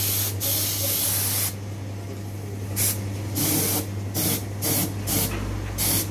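Paint sprayer hissing as it sprays paint: one long spray lasting over a second, then a string of short bursts roughly half a second apart, over a steady low hum.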